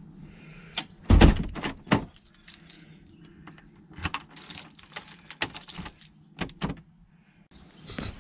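Keys on a lanyard jangling, with the clicks and clunks of a uPVC front door's handle and lock as it is shut and locked with a key; the door shuts with a thump about a second in, the loudest sound.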